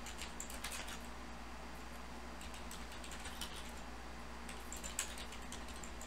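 Typing on a computer keyboard: faint, scattered keystrokes in short clusters, over a low steady hum.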